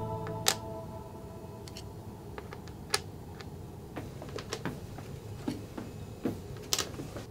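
Scattered light clicks and taps at irregular times, from Scrabble tiles being handled on the board, with the tail of a music track fading out at the very start.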